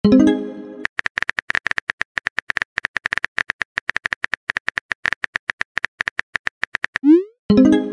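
Chat-app sound effects: a short pitched chime as a message posts, then a long run of rapid keyboard typing clicks, and about seven seconds in a quick rising swoosh followed by the chime again.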